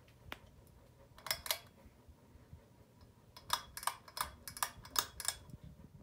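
Pull-chain switch on a Hunter Stratford ceiling fan being pulled by hand: sharp metallic clicks, a pair about a second in and then a run of six over the last couple of seconds, over a faint steady hum.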